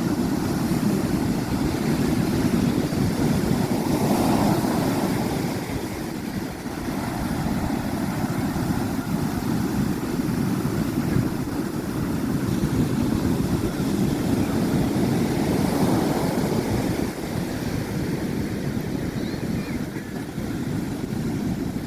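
Steady rushing noise of wind and sea, swelling and easing every few seconds.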